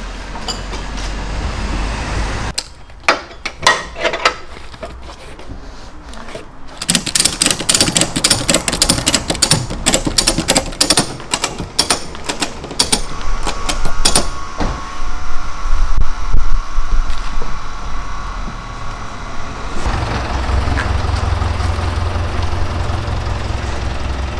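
Ratchet strap being cranked tight over a truckload of cardboard, a fast run of metal clicks with knocks and clatter after it, then the Hyundai Mighty truck's engine running low and steady near the end as it pulls away.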